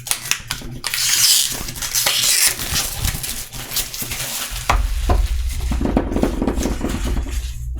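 Crinkling plastic shrink-wrap being slit and pulled off a boxed card deck, a dense crackling rustle that is loudest in the first few seconds. Later it turns to lower rustling with deep handling bumps and a few ticks.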